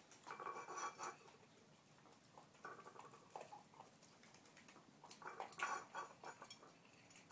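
Faint sounds of dogs eating from food bowls on a hard floor: bowls clinking and scraping along with crunching, in short bursts about half a second in and again about five seconds in.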